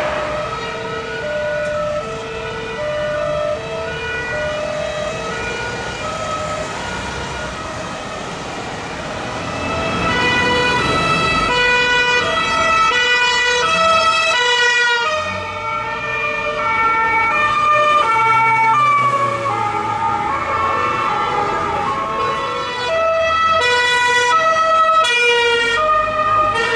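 Police two-tone sirens alternating between two pitches, about twice a second. Partway through, a second two-tone siren sounds out of step with the first, over traffic noise.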